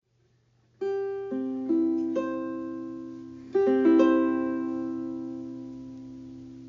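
Ukulele played by plucking: two short phrases of a few notes, about a second in and again about three and a half seconds in, each left to ring and fade slowly.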